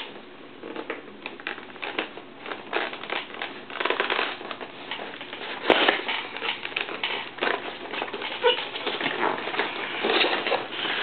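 A cardboard model box being opened by hand: rustling and crinkling of cardboard and packaging with many small clicks and taps, and one sharper snap about six seconds in.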